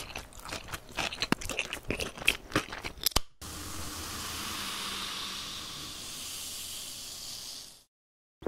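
Dense crackling and crunching clicks for about three seconds, then a steady hiss of carbonated Coca-Cola fizzing that starts suddenly and fades out after about four seconds.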